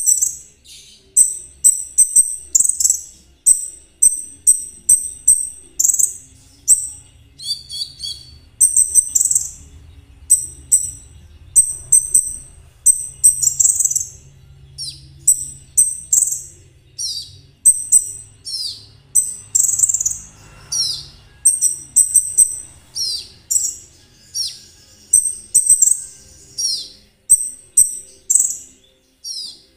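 Kolibri ninja (konin) sunbird singing a fast, continuous song: a long run of sharp, very high chirps and rattling trills, with short falling notes mixed in during the second half.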